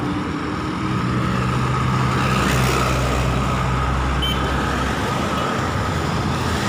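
Highway traffic: cars and vans driving past close by, engine hum and tyre noise swelling as a vehicle goes by about two to four seconds in, then easing off.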